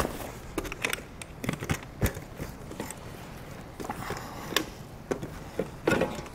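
Handling noise: rustling of a soft luggage bag with scattered knocks and clicks, then a sharp click near the end as a hard-case pannier's lid is unlatched and lifted.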